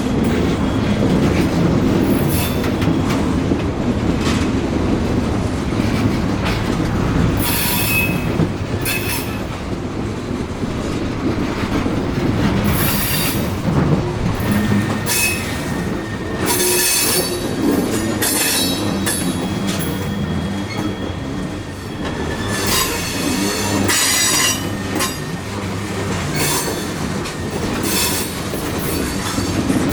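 Coal train cars rolling past on the rails: a continuous rumble of wheels on track, broken every few seconds by short bursts of high-pitched wheel squeal.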